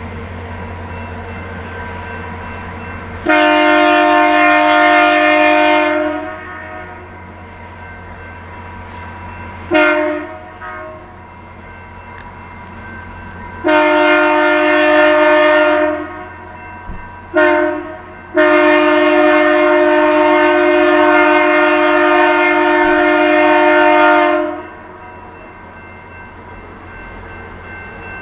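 Air horn of VIA Rail F40PH-2 locomotive 6434 sounding five blasts of mixed length, long and short, with the last the longest: the warning for a level crossing. A low diesel rumble is heard before the first blast.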